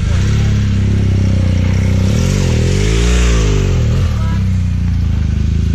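BMW GS motorcycle engine running at idle, blipped once about two seconds in: the revs rise and fall back to idle.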